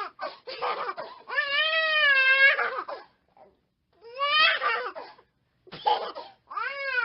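High-pitched crying in a string of wavering wails, the longest lasting over a second, with short silent pauses between them.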